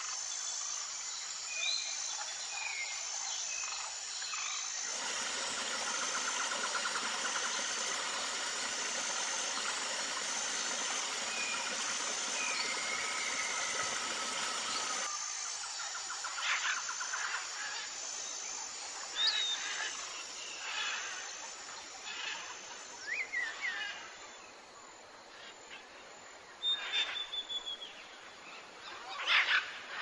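Wild birds calling and chirping over a steady outdoor background hiss, with a short high chirp repeating about once a second through the first half. The background changes abruptly twice, and the second half holds louder, separate sharp chirps and trills.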